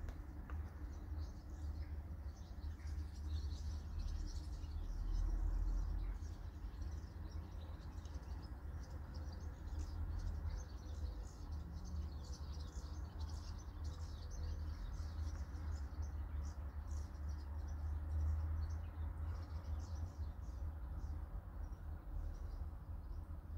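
Small birds chirping in quick high notes throughout, over a steady low rumble.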